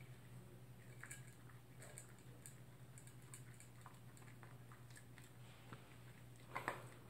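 Toy poodle eating from its bowl: faint chewing and small clicks of food against the bowl, with two louder clatters close together near the end.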